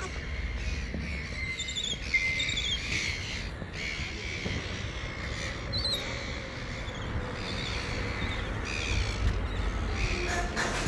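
Small birds chirping in short, high, repeated phrases, over a steady low rumble.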